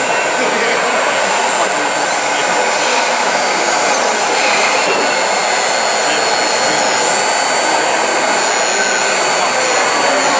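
Hydraulic pump of a 1/14-scale RC CAT 966G wheel loader whirring steadily as it raises and tips a bucket of soil, with a thin high whine that wavers in the second half, over the steady hum of a busy hall.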